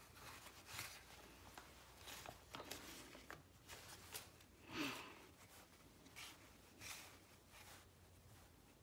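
Near silence: faint, soft rubbing and paper rustling as hands press a clay slab into a paper-lined form, with one slightly louder soft sound about halfway through.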